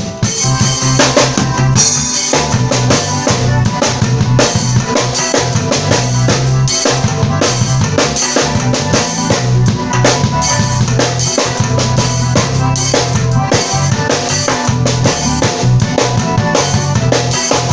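Acoustic drum kit played in a steady groove along with a worship song: kick drum, snare and rimshots over the song's steady bass and held keyboard notes.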